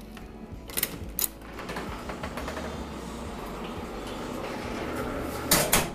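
Electronic key-card door lock clicking twice as the card is inserted and the bathroom door is unlatched and opened, followed by a steady low hum in the tiled room and a brief loud knock near the end.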